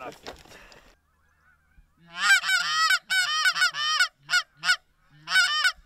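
Goose call blown in the blind, sounding Canada goose clucks and honks: a fast run of sharp notes starting about two seconds in, two short single clucks, then another quick run near the end.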